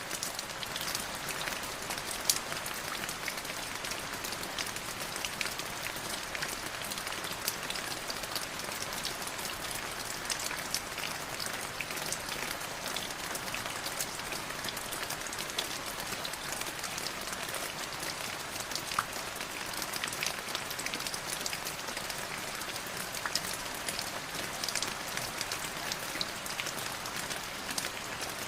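Light drizzle falling steadily: an even hiss of rain with many small drops tapping on a surface.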